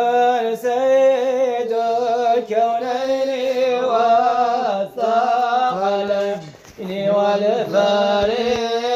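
A singer chanting an Arabic madih, a devotional praise song for the Prophet, in long drawn-out phrases whose pitch bends and ornaments each syllable, with a short break for breath about six and a half seconds in.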